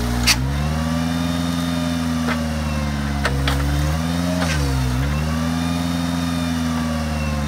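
The engine of a homemade Suzuki-based firewood truck runs its built-in hydraulic log splitter, sagging in pitch under load twice and then picking back up. Sharp cracks and knocks of splitting wood come several times, the loudest just after the start.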